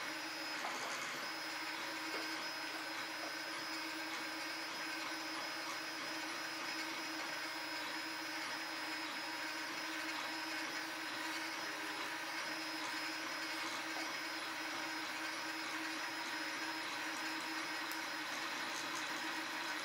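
Ord Bot 3D printer running as it prints the first layer of a part: a steady mechanical whir from the stepper motors driving the print head, with no breaks.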